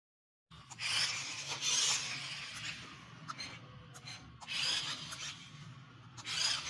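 Rasping whir of a toy RC stunt car's small electric drive motors and gears, with its rubber tyres scuffing on a tile floor, coming in three bursts as it is driven and turned.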